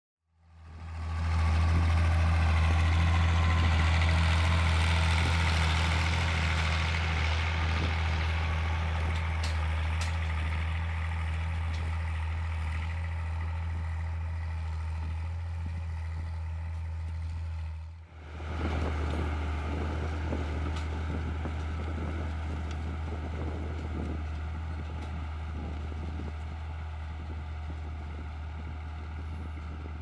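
Ford 7810 III tractor's 6.6-litre six-cylinder diesel engine running under load while pulling a disc harrow. It fades in at the start and slowly gets quieter. After a cut about 18 seconds in, it carries on with an irregular rattling clatter from the harrow working the ground.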